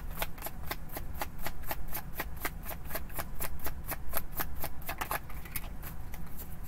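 A tarot deck being shuffled in the hands, a steady run of soft card slaps about five a second that thins out about five seconds in.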